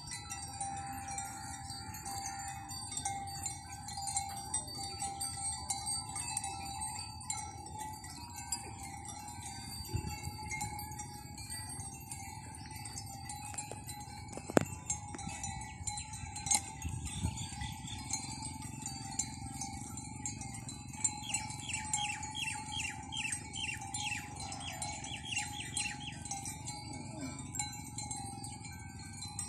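Steady bell-like chiming, a light ringing that goes on throughout with small tinkles scattered through it.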